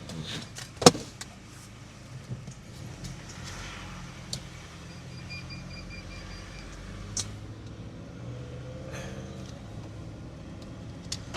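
Car with its engine running: a low steady hum with scattered clicks, the loudest a sharp click about a second in.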